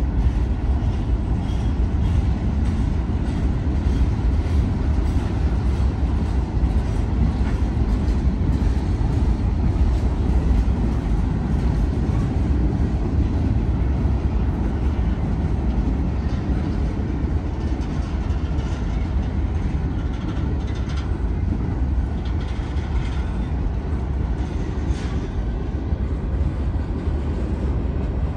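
Freight train cars rolling past: a steady low rumble of steel wheels on rail, with scattered faint clicks from the wheels.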